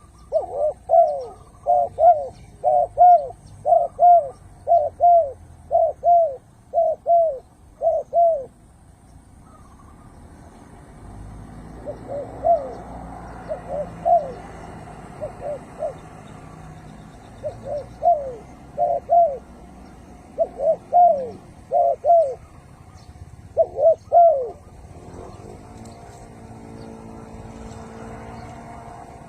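Spotted dove cooing in a steady run of short, paired coos, then after a pause in spaced-out groups of two and three. A low background rumble rises partway through, and a low engine-like hum comes in near the end.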